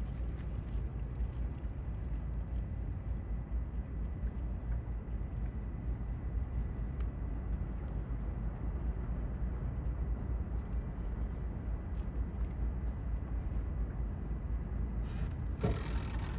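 Steady low rumble with a hiss of outdoor harbour ambience, with a brief noisy burst near the end.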